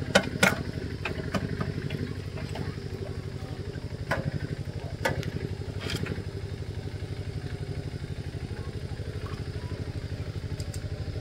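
Small single-cylinder diesel engine idling steadily with an even, rapid pulse. A few sharp metal clinks of tools come over it near the start and again about four to six seconds in.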